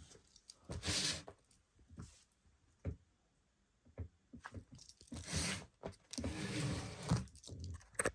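Handling noise: crunching and rustling in irregular bursts with scattered clicks and knocks, like packaging being handled.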